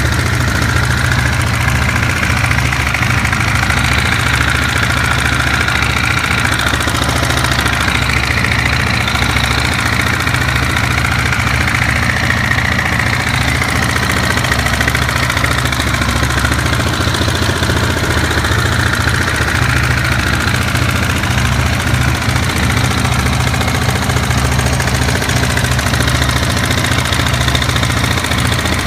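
KTM 690 SMC EVO2's single-cylinder four-stroke engine idling steadily with a suspicious mechanical noise from the engine, which the owner thinks may be a worn rocker arm bearing.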